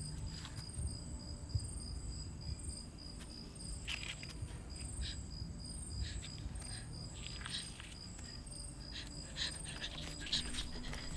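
Insects chirping in a steady, even pulse, high-pitched, about two pulses a second, over a low ambient rumble. A few short soft clicks come in the second half.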